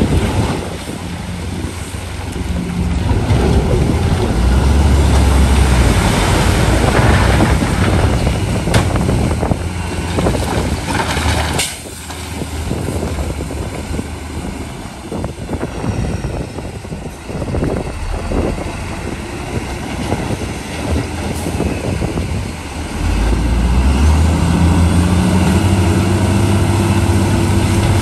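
Heavy diesel engine of an earthmoving machine working hard, with clatter and scraping over it. About 12 seconds in there is a sharp bang, after which the sound is quieter, and the engine comes up strongly again near the end.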